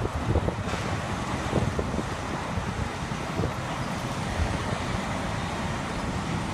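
City street traffic noise, a steady rumble and hiss, with wind buffeting the microphone in a few low thumps.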